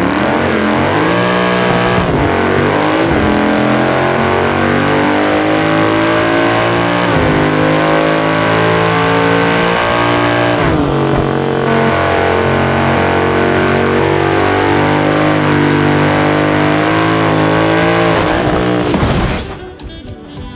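Audi RS6 twin-turbo V10 with a straight-through exhaust at full-throttle acceleration: the engine note climbs steadily in pitch and drops back at several upshifts, then cuts off sharply about a second before the end.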